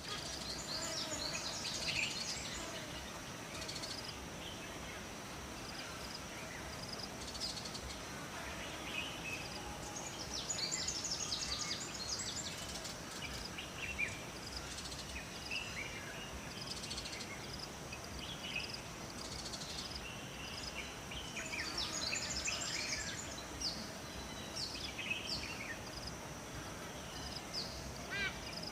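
Several songbirds chirping and trilling in short phrases over a steady rush of flowing water, with a continuous high-pitched buzz underneath.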